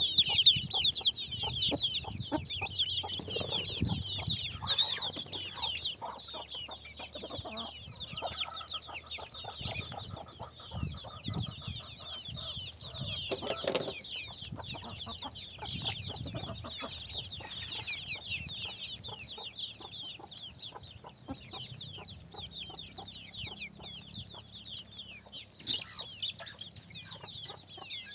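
Chickens calling: a dense, unbroken chatter of many short, high, falling peeps, with occasional lower clucks and small taps underneath.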